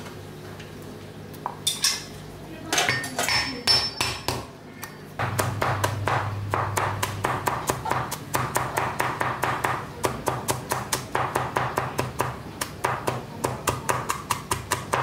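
Cleaver chopping garlic on a wooden chopping board: a few scattered knocks at first, then from about five seconds in a steady run of quick chops, about four a second, as the cloves are minced.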